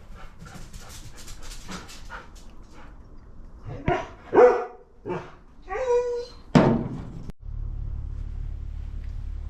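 A dog barking, five loud short barks in quick succession about halfway through, after a run of light clicks or taps. The sound cuts off suddenly and is followed by a steady low hum.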